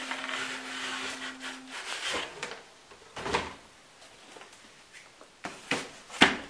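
Cardboard rubbing and sliding as the outer sleeve of a graphics card box is pulled off the plain brown inner carton. The sliding lasts about two seconds, followed by a few short knocks of cardboard being handled and set down, the clearest a little before the middle and near the end.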